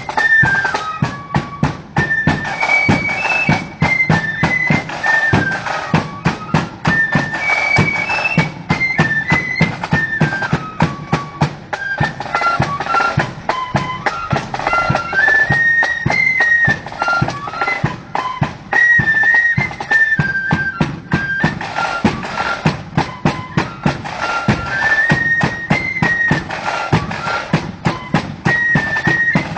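Marching flute band playing a tune in unison, the flutes carrying a high melody over a steady, busy beat of side drums and bass drum.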